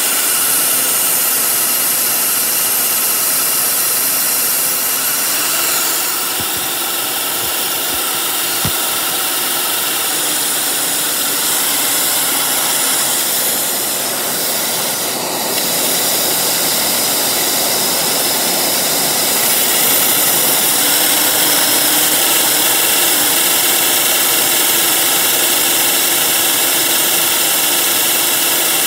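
Vacuum cleaner running with its hose on a Lego turbine engine, the suction spinning the engine's plastic turbine. A loud, steady whir and rush of air with a few thin high whines in it. It dips slightly about a quarter of the way in and again around halfway, then rises a little about two-thirds through.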